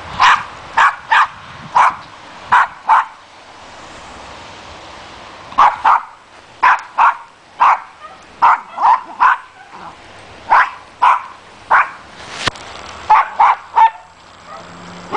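Dog barking repeatedly: short, sharp single barks in quick runs, with a pause of a couple of seconds about three seconds in.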